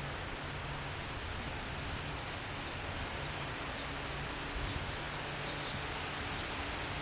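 Steady rushing noise of storm wind and rain from a strong cold front's gusty winds.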